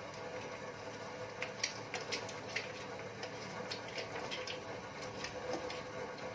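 Scattered light clicks and taps of hands working with kitchen things, over a faint steady hum.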